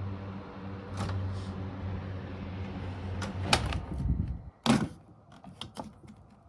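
Panasonic wall-mounted ventilation fan running with a steady motor hum that stops about four seconds in. Several sharp plastic knocks and clatters come with it, the loudest just after the hum stops, followed by small clicks.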